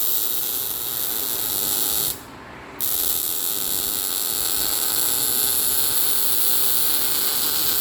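Welding arc joining a replacement muffler into the exhaust pipe: a steady hiss that stops for under a second about two seconds in, then starts again.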